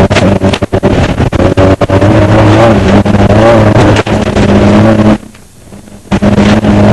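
Off-road desert race car engine running hard under load, heard on board, its pitch wavering with throttle, over many sharp knocks. About five seconds in, the sound cuts out abruptly for about a second, then the engine comes back.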